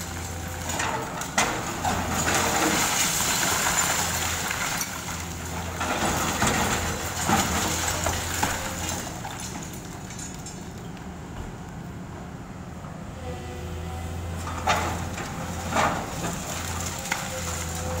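A hydraulic excavator with a demolition jaw attachment crushing a concrete building. The diesel engine hums steadily under crunching and grinding of breaking concrete, with several sharp cracks and knocks of debris breaking off and falling; the loudest two come close together late on.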